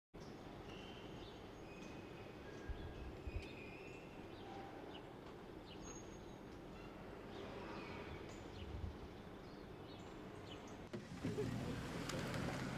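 Outdoor ambience: a steady background of environmental noise with scattered short bird chirps. About eleven seconds in it turns louder and rougher, with wind and water noise.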